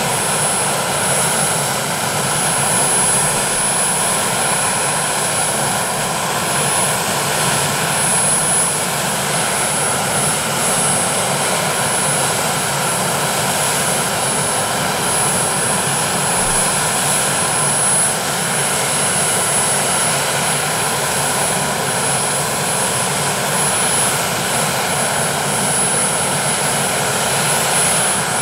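Westland Sea King helicopter ground-running with its rotors turning, its twin Gnome turboshaft engines giving a steady loud whine over the rotor and engine noise, with a thin high tone held throughout.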